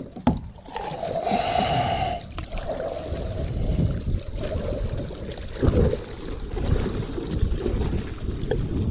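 Water splashing and sloshing around a kayak, with a brief hissy splash a little over a second in, over a steady low rumble.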